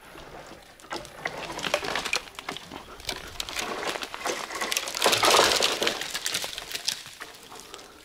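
A dead pine being pushed over: a run of cracking and snapping dry wood and branches, loudest about five seconds in.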